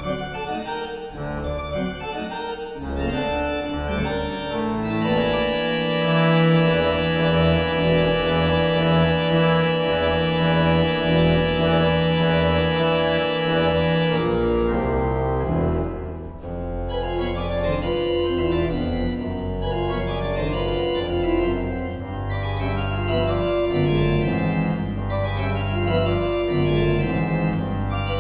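Pipe organ playing: quick figures at first, then a loud full chord held for about nine seconds from about five seconds in. After a brief dip, a steady deep bass sounds under shifting chords.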